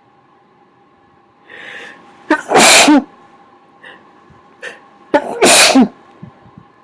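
A person sneezing twice, about three seconds apart, each loud sneeze preceded by a short in-breath. The sneezes are covered in an attempt to quiet them, but they still come out loud.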